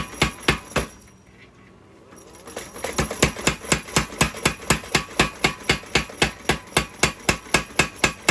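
Power hammer striking hot steel in a rapid, even rhythm of about five blows a second, drawing out a knife tang. The blows stop about a second in and start again a couple of seconds later.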